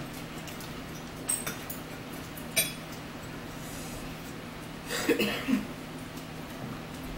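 Metal forks clinking against plates a few times during a meal, one clink ringing briefly. About five seconds in there is a short vocal sound, the loudest moment.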